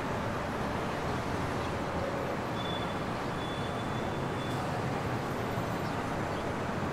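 Steady hum of distant city road traffic, an even wash of noise with no distinct events.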